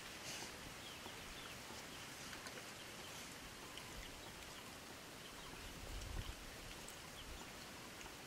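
Faint outdoor ambience with small birds chirping in short, high calls, and a soft low thump about six seconds in.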